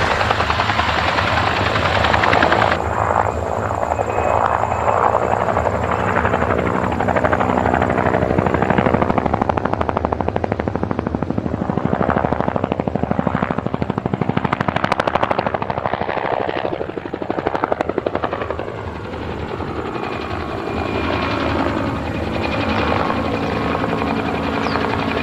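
Helicopter sound effect: rotor blades beating rapidly and evenly over a steady engine hum, the loudness swelling and easing slightly.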